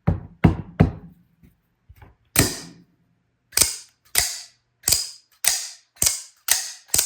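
Cobratec out-the-front automatic knife being fired and retracted over and over, a series of about a dozen sharp snaps as the blade shoots out and locks and then pulls back in. The snaps come about every half second in the second half. This is the mechanism being tested after cleaning, oiling and reassembly, and it is working again.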